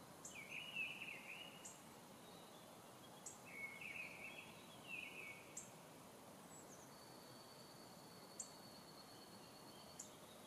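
Faint outdoor background with wild birds calling: two short runs of warbling calls in the first half, brief high chirps every second or two, and a thin, steady high note for the last few seconds.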